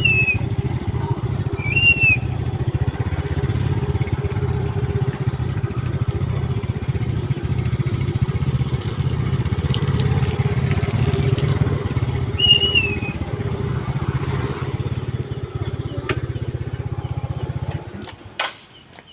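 A motorcycle engine running steadily at idle, then switched off near the end. A bird gives a short whistled chirp three times over it.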